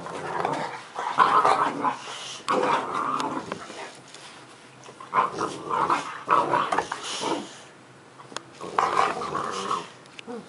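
Boxer puppy growling in play, in about four rough bouts a second or two long with short pauses between them.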